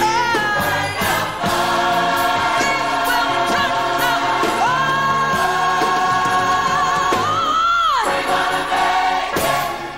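Large gospel choir singing with its band, holding one long chord about halfway through that swoops down about eight seconds in, as the song comes to its close near the end.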